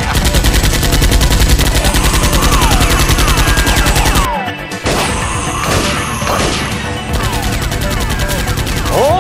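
Rapid automatic gunfire sound effect for Nerf blasters, an unbroken rattle of shots for about four seconds that cuts off abruptly. Background music runs underneath and carries on afterwards.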